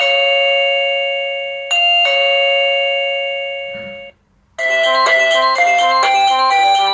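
Electronic doorbell chime sounding a two-note ding-dong with long ringing tones. About four and a half seconds in, a quick melody of short bell-like notes starts.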